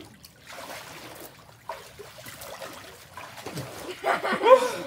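Faint water sloshing and trickling in a small above-ground pool as a swimmer moves under the surface. About three and a half seconds in, a person's voice calls out, louder than the water.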